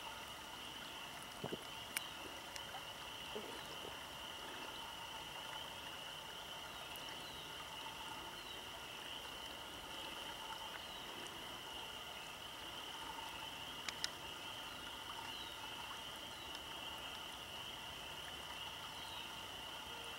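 Water running through and over a beaver dam of sticks in a ditch, under a steady high-pitched chorus of spring frogs. Two brief sharp clicks, about two seconds in and again about two-thirds of the way through.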